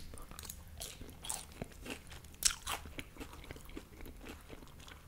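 Close-miked chewing of French fries: irregular crunching and biting sounds with small mouth clicks.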